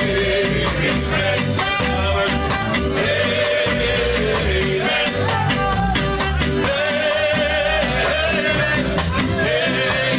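Live ska band playing: long held melody notes over bass, drums and a steady, regular beat.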